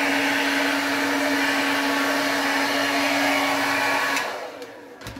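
Handheld hair dryer running steadily with a whir and a hum. It is switched off about four seconds in and winds down, and a knock follows near the end.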